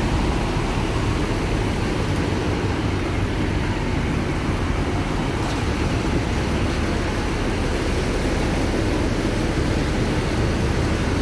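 Steady rumble and hiss of road traffic, with no distinct events standing out.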